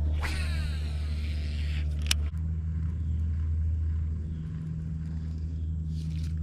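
Kayak's propeller drive running with a steady low hum, which shifts slightly in pitch about two seconds in, just after a sharp click.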